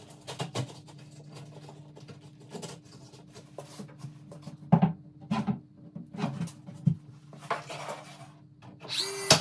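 Wooden shims being handled and fitted behind an interior door jamb: irregular light knocks and taps with some rubbing of wood, the loudest knocks about five seconds in and near the end, over a faint steady hum.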